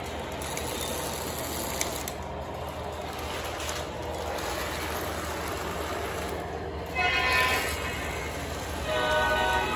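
Lionel O-gauge model trains running on the layout, with steady running noise from the wheels on the track. Two short horn blasts sound near the end, about two seconds apart.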